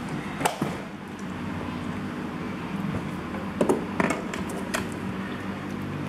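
A few short taps and clicks over a steady low hum: one about half a second in, and a small cluster around four seconds in.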